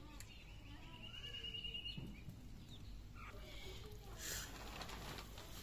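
Birds calling in the background, with a rapid, evenly pulsed high trill lasting over a second near the start and scattered short chirps. A short noisy scrape comes about four seconds in.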